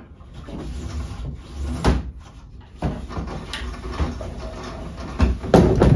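Rope running through the pulleys of a ceiling kayak hoist as a kayak is lowered, with uneven rustling and a series of knocks and rattles. The loudest knocks come near the end.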